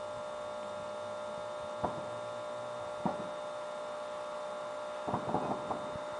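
Fireworks going off: two single bangs about a second apart, then a quick run of several pops near the end, over a steady electrical hum.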